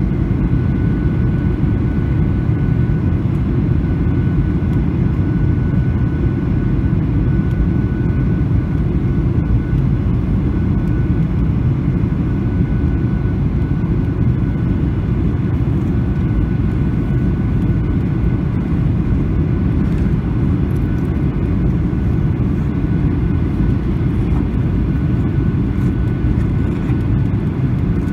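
Steady cabin noise of a Boeing 737-800 in descent on approach: a deep, even rumble of airflow and its CFM56 jet engines, with a faint steady high whine above it.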